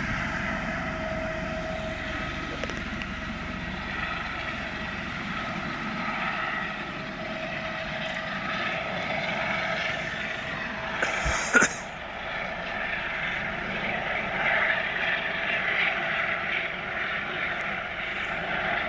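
Helicopter engine and rotor running steadily, with a steady whine over the noise. A single sharp knock about eleven and a half seconds in is the loudest moment.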